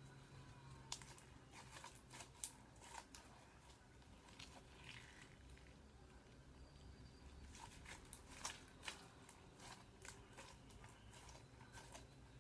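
Faint, irregular clicks of homemade glue slime being squeezed and poked by hand, the small pops of slime 'clicking'.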